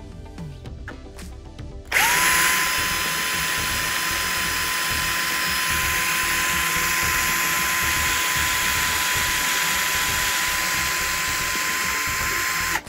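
Cordless drill boring a hole through the metal front panel of a MIG welder. A steady high motor whine over a grinding hiss starts about two seconds in, holds one speed, and cuts off abruptly just before the end.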